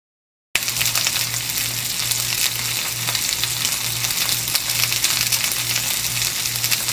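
Sliced onions frying in oil in a cast-iron skillet on medium heat, a steady dense sizzle and crackle that starts about half a second in. A low steady hum runs underneath.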